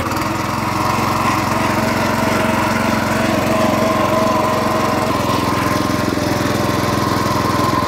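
Small engine of a Hankook GSM-900G walk-behind cultivator running steadily under load while its rotary tines till the soil.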